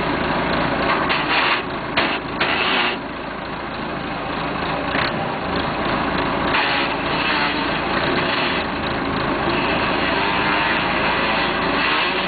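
1976 Massey Ferguson 50D backhoe's diesel engine running, with a few short rasping, scraping noises in the first three seconds from a transmission that is hard to get into gear.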